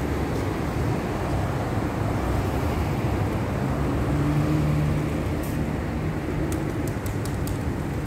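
Steady low rumble of road traffic, with a passing engine hum about halfway through and a few sharp clicks later on.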